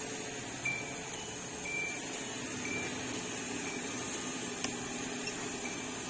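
Suzuki Every's in-cabin warning chime beeping about twice a second over a steady hum, with a single click about two-thirds of the way through.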